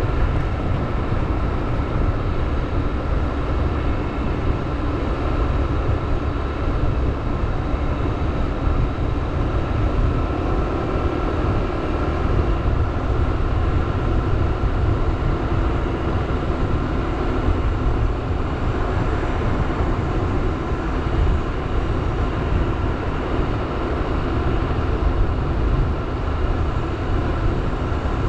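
A motorbike being ridden: a steady low engine drone under heavy wind rumble on the microphone.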